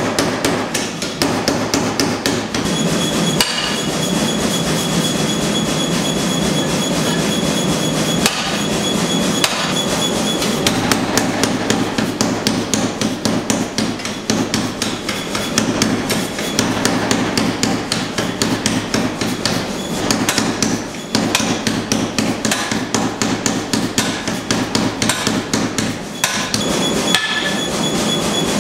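Rapid, continuous hammering on hot steel during axe forging, several metal-on-metal blows a second, with a faint steady ring through it.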